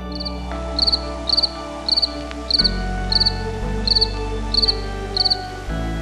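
A cricket chirping steadily: short, high chirps of a few quick pulses each, a little under two a second, over background music of sustained chords.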